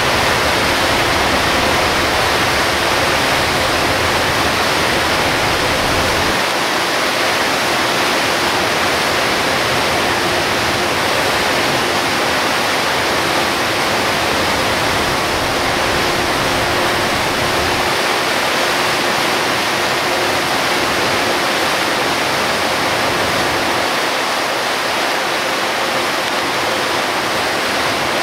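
Steady, loud hiss of torrential rain and tyre spray on a Hino Selega HD coach driving through heavy rain, with a faint engine hum underneath. The low road rumble drops away about six seconds in and again later.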